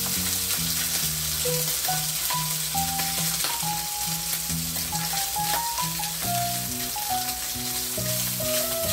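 Chopped longganisa sausage sizzling as it fries in oil in a nonstick frying pan, stirred with a spatula. A plucked background melody with a bass line plays over the sizzle.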